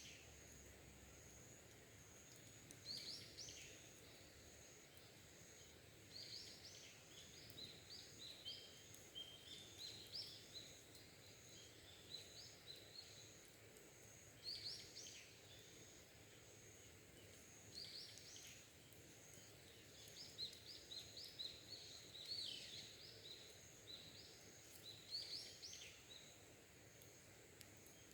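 Wild birds singing in short, quick phrases that repeat every few seconds, faint over a steady high-pitched hum.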